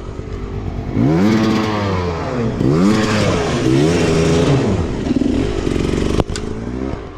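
Enduro dirt bike engine revved hard, its pitch rising and falling three times in quick succession as the rider works the throttle, then dropping back lower. A sharp knock about six seconds in.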